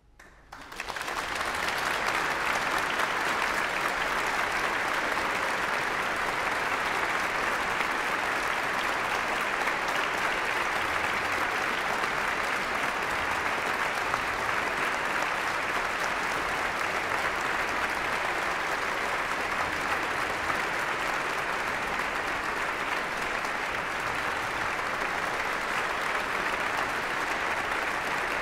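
Large concert audience applauding: clapping breaks out from silence and within about a second and a half becomes a dense, steady wash of applause.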